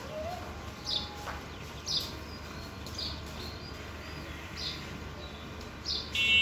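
A bird chirping: short high calls repeating irregularly, about once a second, over a low steady hum. Just before the end a bright, steady tone with several pitches begins.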